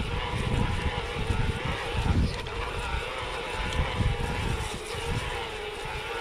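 Mountain bike riding over a grassy dirt track: wind buffeting the microphone and the tyres rumbling, with a steady hum underneath and a few light clicks from the bike.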